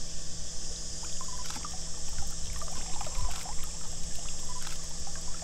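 Lake water trickling and dripping off a large fish and a man's arms as the fish is lifted out of the water, with scattered small splashes, over a steady high insect drone.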